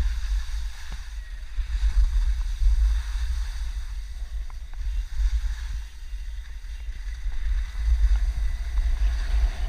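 Wind buffeting the microphone: a gusting low rumble that swells and eases every second or so, over a faint steady hiss.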